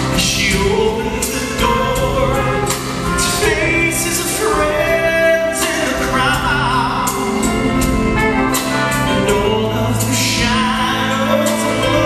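A male singer sings a Christmas ballad live into a microphone over instrumental accompaniment. He holds long notes with vibrato.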